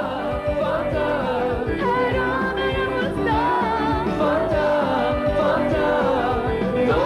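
Music from a TV commercial: a singing voice carrying a melody over a steady beat.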